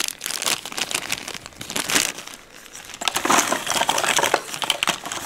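Small plastic zip bag of plastic game miniatures crinkling as it is handled, with a lull about halfway through; the crinkling and light clicks pick up again as the cardboard tiles in the box are handled.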